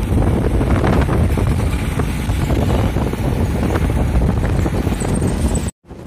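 Wind buffeting the microphone on a moving motorcycle, with the bike's road and engine noise underneath; it cuts off abruptly near the end.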